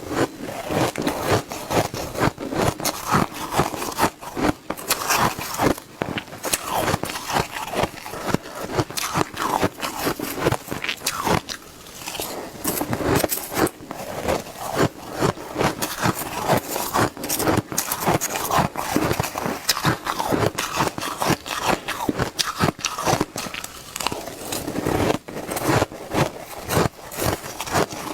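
Shaved ice being bitten and chewed fast: a dense, continuous run of sharp crunches with a few brief lulls.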